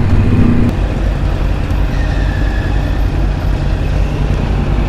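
Kawasaki ZX-6R sport bike engine heard through a helmet microphone, easing off about a second in and running low as the bike rolls to a stop in traffic.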